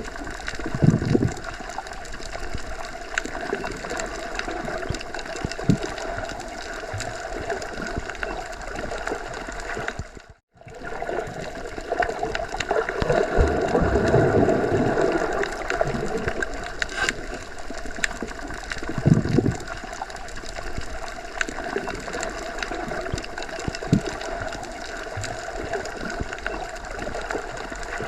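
Underwater ambience: a steady, muffled rush of water with low gurgling swells, fullest a little past the middle. It cuts out for a split second about ten seconds in.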